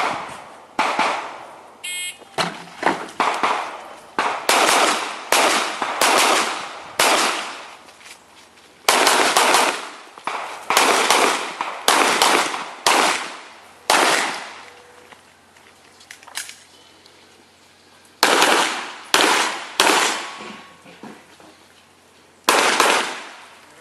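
Glock 17 Gen4 9 mm pistol firing an IPSC course of fire: about two dozen shots, many in quick pairs, each with a short echoing tail, and a pause of a few seconds midway. A short high electronic beep sounds about two seconds in, typical of a shot timer's start signal.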